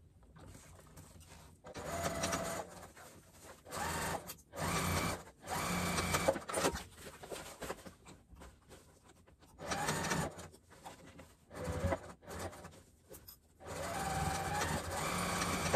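Electric sewing machine stitching waterproof canvas in a series of short stop-start runs, each a second or two long with pauses between.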